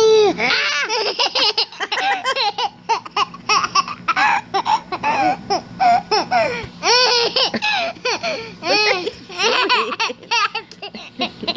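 Toddler laughing and giggling in a long run of short, high-pitched bursts.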